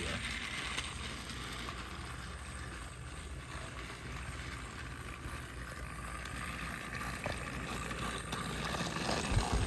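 Battery-powered Thomas & Friends Motorized toy engine (Percy) running: its small electric motor whirs steadily throughout.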